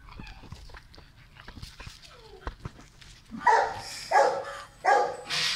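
Beagle barking three times in quick succession, after a few soft clicks and scuffles.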